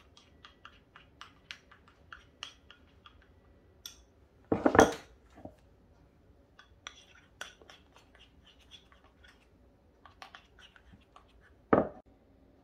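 A metal spoon stirring thick melted candy melts in small ceramic bowls, making many light clicks and scrapes against the bowl. There are two louder knocks: the loudest a little over a third of the way in, and a sharp one near the end.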